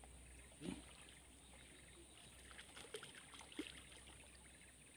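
Near silence, with a few faint sloshes and small knocks from wading in shallow swamp water.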